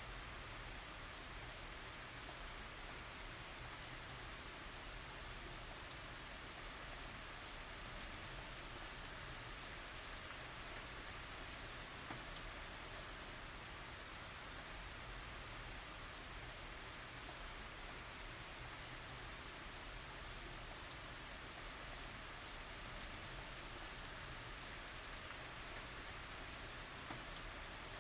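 Steady tropical rain falling, an even hiss of rain with fine individual drop patters throughout.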